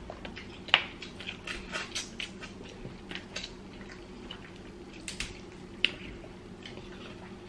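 Close-up eating of boiled blue crab: shell being picked and pulled apart and wet chewing, heard as an irregular scatter of small sharp clicks and squishes, two of them louder than the rest.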